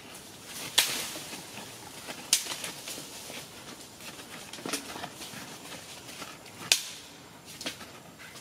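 Four sharp cracks, a second or two apart, with fainter ticks between them over a steady faint hiss.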